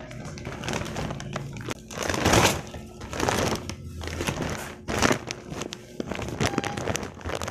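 Gift-wrapping paper being torn open and crumpled by hand, in irregular rustling bursts, loudest about two seconds in and again around five seconds, with thin wrapping around folded clothes crinkling near the end.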